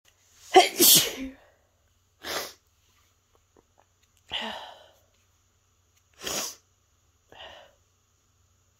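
A woman sneezing over and over: five sneezes a second or two apart. The first is the loudest and the last the faintest.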